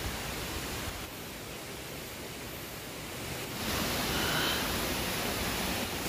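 Steady rushing of a rocky mountain stream, an even hiss of water, stepping up in loudness about three and a half seconds in.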